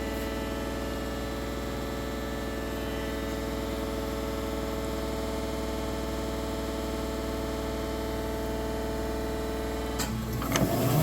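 Marvel 25 APC vertical bandsaw running steadily with its 10-horsepower hydraulic drive: an even mechanical hum made of several steady tones. Near the end, a couple of clicks and a shift into a louder, lower tone as the machine changes operation.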